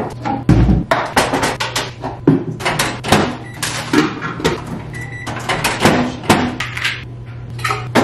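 Kitchen clatter: bowls and dishes knocking and clinking on a counter and cupboard doors banging, a quick string of sharp knocks with a heavy thump about half a second in. A steady low hum runs underneath, and a single short beep comes about five seconds in.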